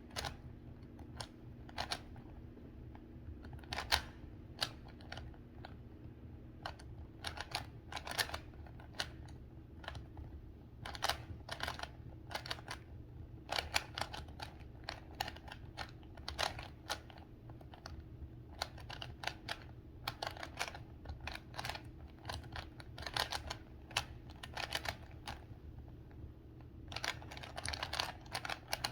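3x3 Rubik's Cube being turned fast by hand during a speed-solve. The plastic layers make irregular clicks and clatter in quick flurries, with brief pauses between them, over a faint steady hum.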